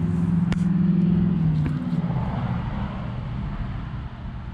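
Steady motor hum, loudest in the first second or so, then dipping slightly in pitch and fading away about two seconds in, leaving background outdoor noise.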